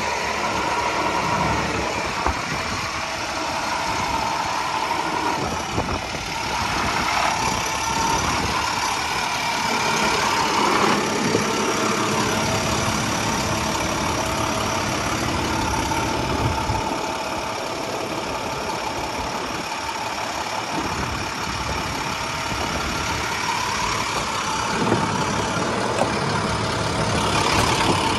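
Truck engine idling steadily, with a few faint shifts in pitch.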